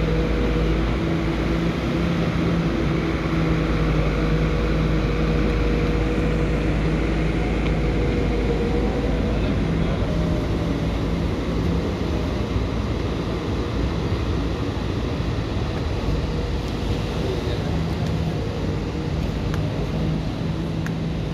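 Muddy floodwater rushing over a wall in a loud, steady, unbroken rush, with a constant low hum of steady tones over it.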